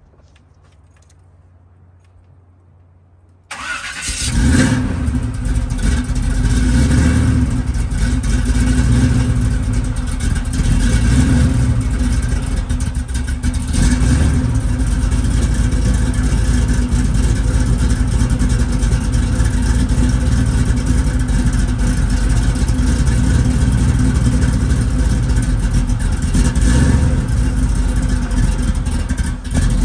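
Supercharged Oldsmobile Cutlass engine starting about three and a half seconds in, then running loud, with a few brief revs.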